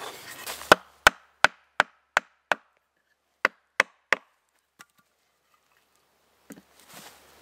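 Sharp wood-on-wood knocks as round wooden legs are driven into auger-drilled holes in a log. Six strikes come about three a second, then after a short pause three more, and one faint tap follows.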